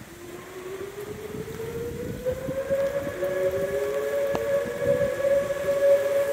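Outdoor warning sirens winding up: one rises in pitch over about three seconds and then holds a steady wail, and a second siren joins about three seconds in, also rising. Wind and rain hiss underneath, with one sharp pop about four seconds in.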